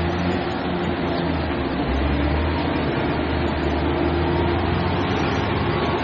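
Fast, swollen river current rushing steadily, with a heavy diesel engine running underneath as a low steady hum.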